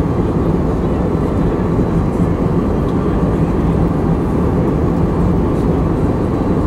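Airliner cabin noise in flight: the plane's engines and rushing air heard from inside the cabin as a steady, loud, deep noise that never lets up.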